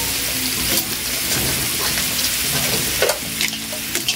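Crabs sizzling in hot oil and blended seasonings in a large pot, a steady hiss broken by a few sharp knocks as more crabs go in.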